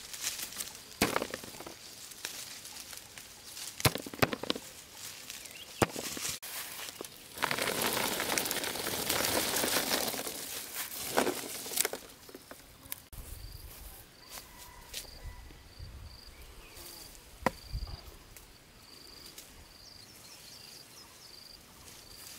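Harvested honey apples being handled in baskets: a few sharp knocks, then about four seconds of loud rattling and rustling as the fruit goes into a woven basket, then quieter handling. In the second half an insect chirps over and over, about twice a second, high-pitched.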